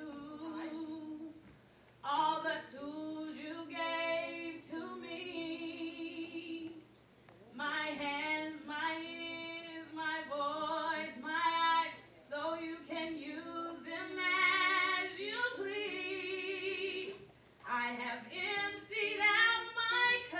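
A woman singing a gospel praise song into a microphone, in long sung phrases with short breaks between them.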